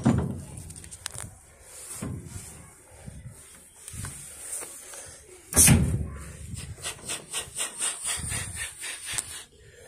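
Knocks and thumps inside a locomotive cab. A loud thump comes about five and a half seconds in, followed by a few seconds of quick clattering knocks, several a second.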